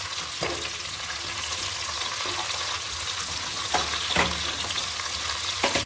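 Whole spices and green herb leaves sizzling in hot oil in a pan, stirred with a metal ladle that scrapes and clinks against the pan a few times.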